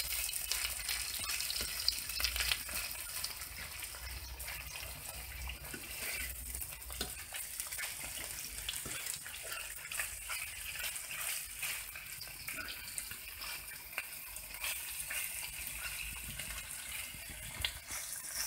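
Mince and onions sizzling in a frying pan, with a metal utensil stirring and scraping through them in faint, irregular ticks.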